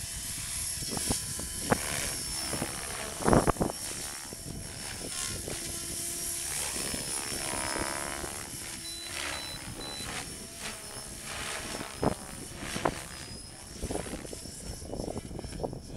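Mikado Logo 550 SX electric RC helicopter in flight: the rotor whirs with a steady high motor whine, and the pitch sweeps up and down near the middle as it manoeuvres. Several sharp thumps cut through, the loudest about three seconds in.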